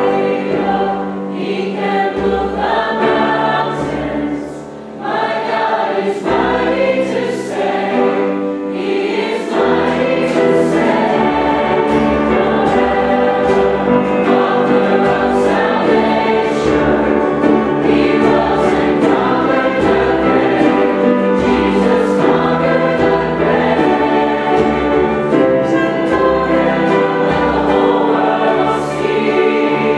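Choir singing in sustained chords. The singing dips briefly about five seconds in and grows fuller and steadier from about ten seconds on.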